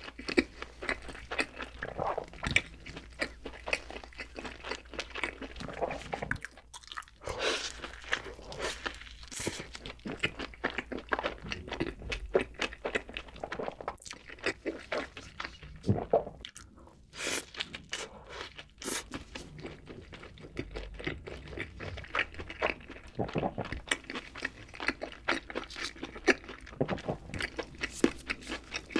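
Close-miked eating sounds: crisp, crackling bites and chewing of crunchy food, in dense irregular runs with a few short pauses.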